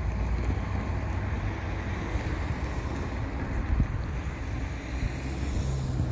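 A pair of GE ET44AH diesel locomotives running light, their V12 engines making a steady low rumble, with wind buffeting the microphone.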